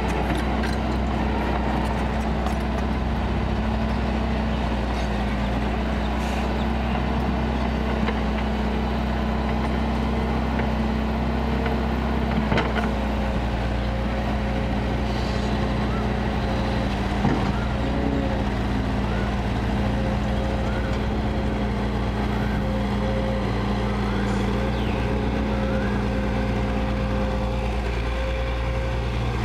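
Kobelco hydraulic excavator's diesel engine running steadily as the machine digs and swings its loaded bucket, with a couple of brief knocks about twelve and seventeen seconds in.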